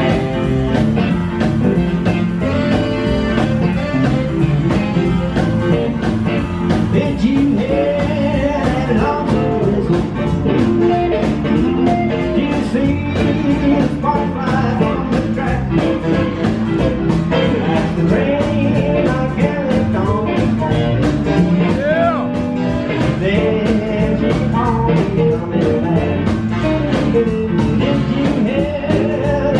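Live swing band playing: piano on a stage keyboard, upright bass and drum kit keeping a steady beat, and electric guitar, with notes that bend in pitch.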